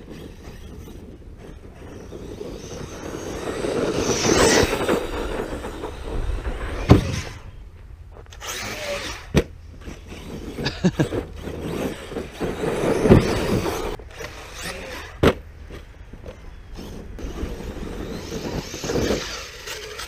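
Arrma Notorious 6S RC truck running over rough, hard dirt: motor and tyre noise swell and fade as it accelerates and backs off, with several sharp knocks from landings and hits on the clods.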